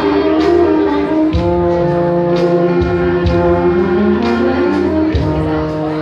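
An orchestra playing: sustained chords over a moving bass line, with light regular beats.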